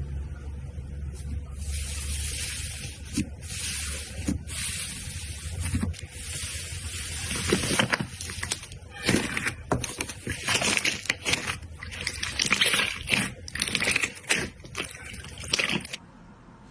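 Slime being squished and pressed by hand: wet, sticky squelching with a dense run of sharp pops and crackles from about halfway through, stopping just before the end.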